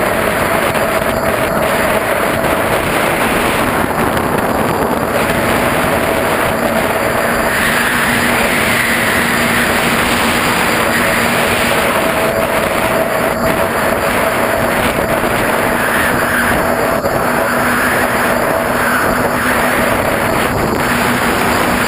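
DeadCat quadcopter's electric motors and propellers whirring in flight, loud and steady under a rushing hiss, picked up by the camera riding on the quadcopter. The motor tone wavers up and down as the throttle changes, growing higher and brighter in the second half.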